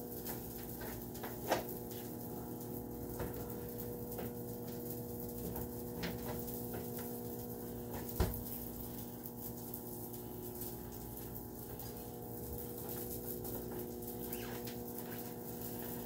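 Steady low hum with a fixed pitch, with faint scattered clicks and two short knocks, one near the start and one about halfway through.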